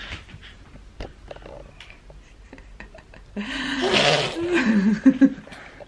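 An 11-month-old baby vocalizing excitedly: a loud, wavering, breathy babble about three and a half seconds in that lasts about two seconds. Before it come a few light taps.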